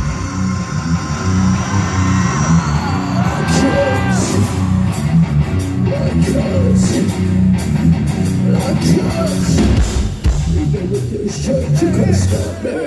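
Heavy metal band playing live, heard from the crowd: distorted electric guitars over a driving drum and bass rhythm.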